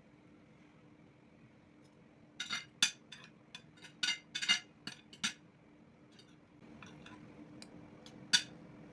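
Utensils clinking against dishware: a quick run of sharp clinks starting about two and a half seconds in and lasting about three seconds, then one more clink near the end.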